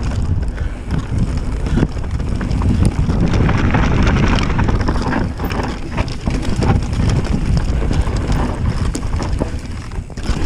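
Capra mountain bike riding fast down a rough dirt trail: tyre rumble with frequent rattles and knocks from the bike over bumps, and wind buffeting the microphone.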